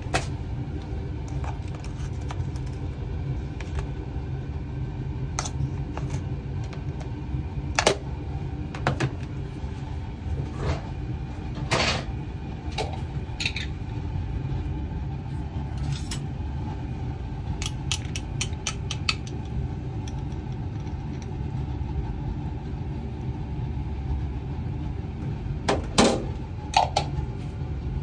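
Steady low rumble with scattered sharp clinks and knocks of kitchen utensils and containers being handled, a cluster of quick ticks between about 17 and 19 seconds in.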